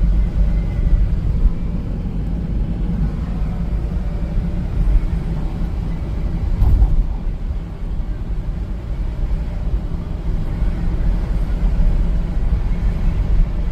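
Steady low rumble of a car moving along the road, heard from inside the car: road and engine noise with no distinct events.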